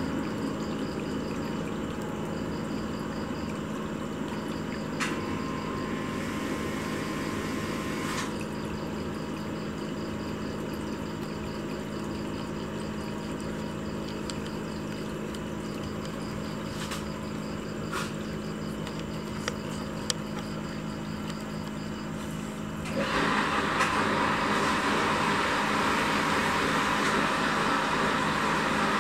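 A steady mechanical hum with hiss. About 23 seconds in the hiss turns suddenly louder and brighter and stays that way; a few faint clicks are heard along the way.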